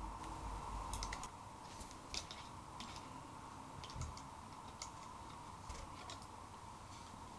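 Faint, irregular small clicks and taps of metal tweezers working inside an opened Sony WM-EX610 cassette Walkman while a new rubber drive belt is fitted around its pulleys, about eight in all, over a steady faint hum.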